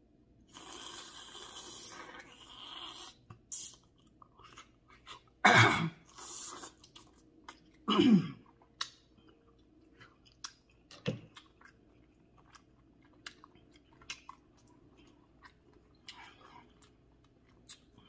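A person eating crab legs with butter sauce close to the microphone: chewing, with scattered crunches and sharp clicks of crab shell. Twice a louder voice-like sound falls in pitch.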